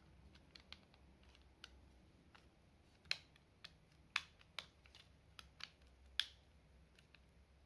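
Small plastic clicks and snaps as the parts of an official Raspberry Pi 5 plastic case are handled and pressed together around the board, scattered irregularly, the sharpest about three, four and six seconds in.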